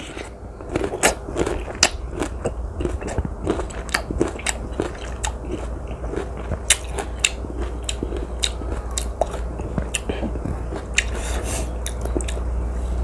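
Close-up biting and chewing of a young, still-crunchy water mango, with many irregular crisp crunches.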